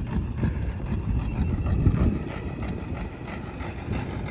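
Stripped-down tractor's diesel engine running hard as it pulls away across a gravel lot, quieter after about two seconds as it moves off.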